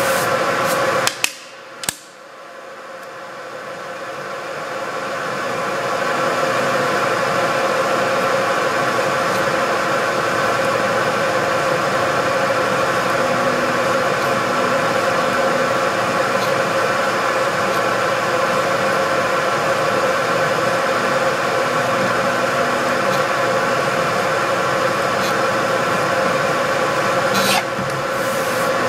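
Turret milling machine spindle running a chamfering bit in its drill chuck: a steady hum with several tones. It drops away sharply about a second in and builds back up over the next few seconds.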